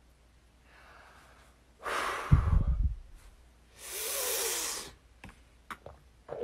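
A person breathing out hard, once with a thump about two seconds in and again as a longer hissing breath about four seconds in. A few short clicks follow near the end.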